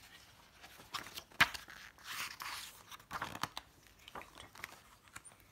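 Pages of a thin paperback picture book being flipped and rustled, with one sharp tap about a second and a half in.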